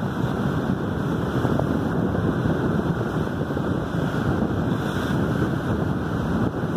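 Steady wind noise buffeting the microphone over the rush of sea water along a moving boat.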